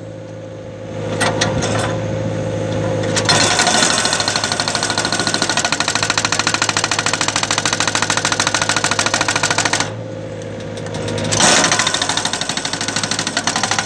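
Excavator-mounted hydraulic breaker hammering rock in rapid, even blows, heard from the cab over the running excavator engine. The engine runs without the hammer for the first three seconds and again in a short pause about ten seconds in, then the hammering starts again.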